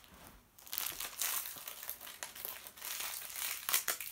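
Shiny crinkly wrapper being pulled and torn open by hand: a run of irregular crinkling rustles starting about a second in, loudest near the end.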